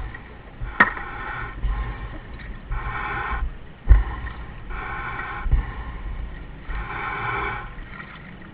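Diver breathing in a surface-supplied dive helmet, heard over the diver radio: a hiss about every two seconds, with a few dull knocks in between.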